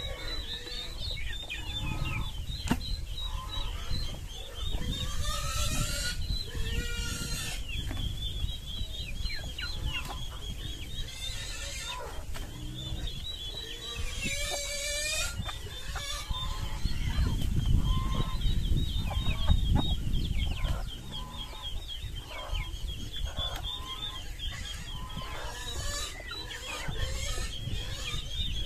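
Chickens clucking and calling, with a louder squawking cry about fourteen seconds in, over a constant high chirping. Low rumbling noise swells for a few seconds past the middle.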